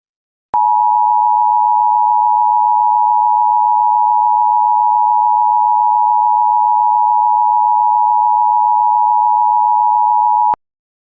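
Emergency Alert System two-tone attention signal: two steady tones near 1 kHz sounded together for about ten seconds, starting with a click and cutting off with a click near the end.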